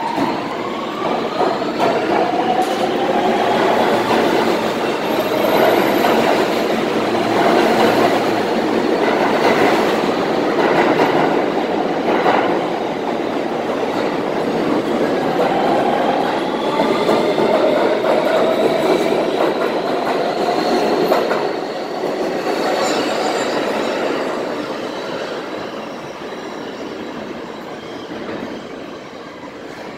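R160B Siemens subway trains pulling out of the station: the rising whine of the traction motors as the train accelerates, over the rumble of wheels on rail. The whine climbs at the start and again from about 16 seconds in, and the sound fades near the end as the train recedes into the tunnel.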